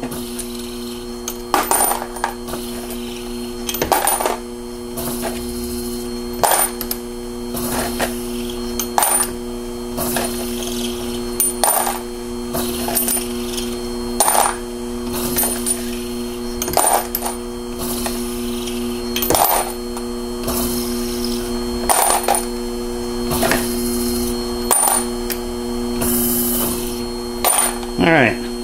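Henderson powered case trimmer's electric motor running with a steady hum while rifle brass is trimmed case after case, with a metallic clink of brass about every two and a half seconds as each case is put in, cut and taken out. The motor stops shortly before the end.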